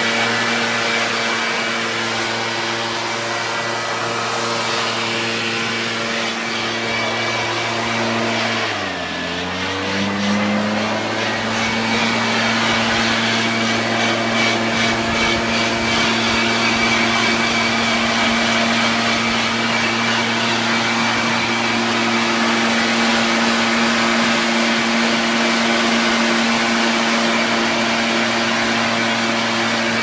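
Backpack leaf blower engine running steadily at high speed with the rush of air from the tube; about nine seconds in the engine speed drops briefly and then climbs back up.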